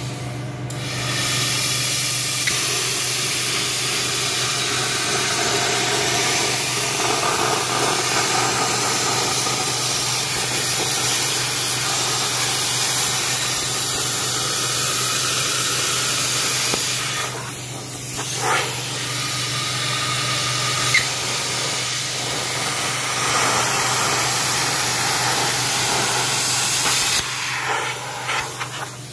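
Plasma cutter cutting through sheet steel: a loud, steady hiss of the arc and air jet, with a short break just past halfway, stopping shortly before the end. A steady low hum runs underneath.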